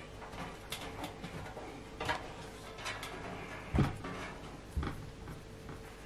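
Light scattered clicks and scraping from handling a metal PC case and fingernails picking at a sticky foot pad on its base, with two sharper knocks in the second half.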